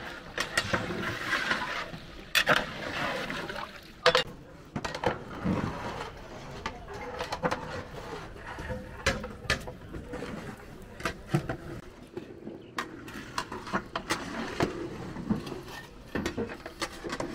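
Irregular knocks and clicks, a few of them sharp, over a busy background of people talking.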